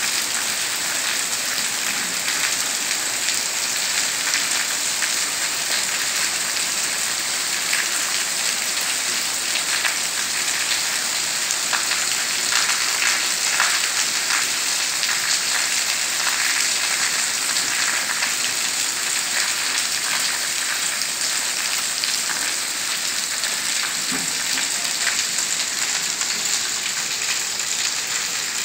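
Heavy rain pouring down and splashing on paved ground: a steady, dense hiss that holds at the same level throughout.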